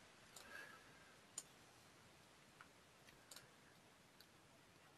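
Near silence, with a few faint, short clicks spaced about a second apart.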